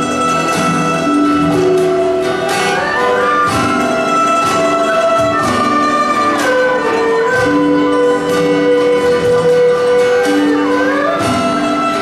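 Chinese folk ensemble playing a slow song: an erhu melody with smooth slides between held notes, over plucked guitar and Chinese lute chords.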